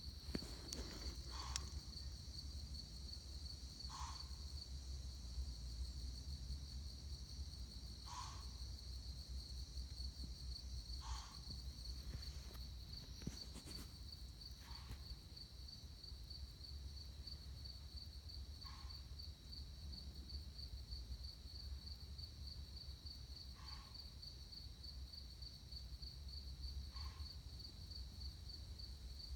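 An unidentified animal making short snorting calls, one every three to four seconds, over a steady high-pitched chorus of night insects.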